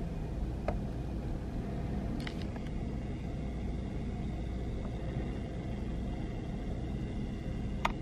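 Steady low room rumble with a few faint clicks and taps.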